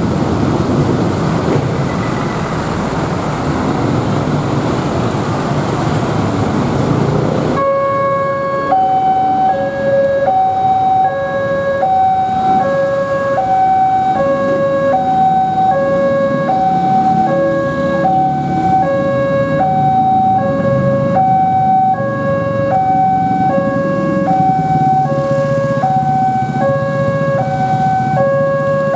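Road traffic, then about a quarter of the way in a railway level-crossing alarm starts: an electronic bell alternating a low and a high tone in a steady repeating pattern. It is the warning that a train is approaching and the crossing is closing.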